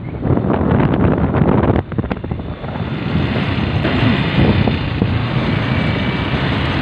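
Wind rushing over the microphone with a steady low rumble, as on the move in a vehicle; gusty jolts in the first couple of seconds, steadier after that.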